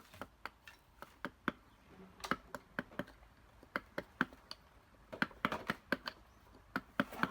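Irregular sharp taps and clicks of a hand carving tool working a piece of wood, some coming in quick clusters.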